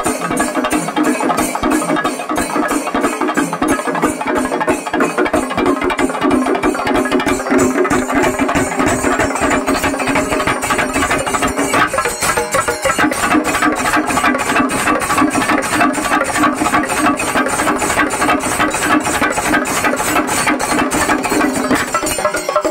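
Kerala temple-festival percussion ensemble playing: a fast, even stream of drum and cymbal strokes over a sustained pitched melodic line, with a brief lull about twelve seconds in.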